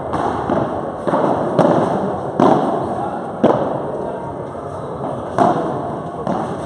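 Padel rally: the ball is hit back and forth with solid padel rackets and bounces on the court, giving about five sharp pops spaced roughly a second apart, each echoing in a large hall.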